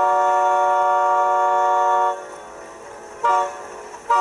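Multi-chime locomotive air horn sounding a held chord. It cuts off about two seconds in, gives a short blast, then comes back in a long blast near the end, the long–short–long pattern sounded when approaching a road crossing.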